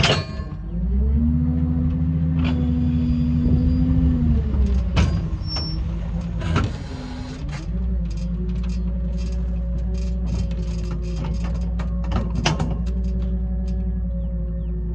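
Dew-Eze hydraulic bale bed working its arms to pick up a round hay bale: the hydraulic pump hums steadily over the pickup's engine, pausing about four seconds in and starting again at about eight seconds, with several metal clanks from the arms and deck.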